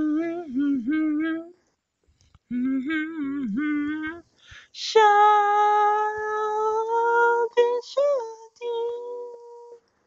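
A solo voice singing unaccompanied, with no clear words. It gives two short wavering phrases, then about five seconds in a long held higher note, a quick slide up and down near eight seconds, and a last held note.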